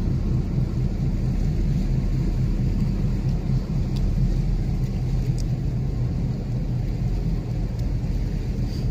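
Steady low rumble, like engines or wind on the microphone, holding an even level throughout.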